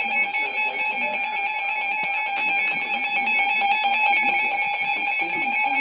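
Emergency Alert System attention signal: a steady, loud electronic alarm tone that breaks in over a TV broadcast. It announces that an emergency alert follows, here a tornado warning.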